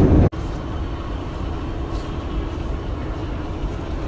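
Steady low rumble of a subway train running, heard from inside the car. About a third of a second in, the sound cuts off abruptly and then carries on at a lower level.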